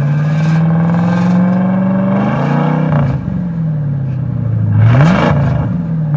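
2001 Ford Mustang engine revved in park through Flowmaster mufflers: the revs climb for about two seconds, drop back to idle, then a quick blip near the end.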